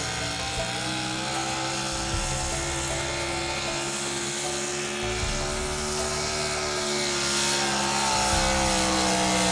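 A 500 cubic inch class pulling truck's engine held at full throttle, a steady high-revving drone under heavy load as the Ford pickup drags the pulling sled. Its pitch sags slightly about seven seconds in while the sound grows louder.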